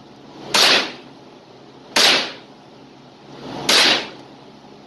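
Three single shots from a Thompson Center TCR22 semi-automatic .22 LR rifle, about a second and a half apart in slow aimed fire. Each crack carries a short echo off the walls of an indoor range booth.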